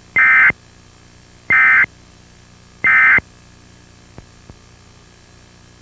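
Emergency Alert System end-of-message code: three short, identical buzzing bursts of digital data tones about a second apart, the SAME 'NNNN' signal that closes an EAS alert. Two faint clicks follow a little past the middle.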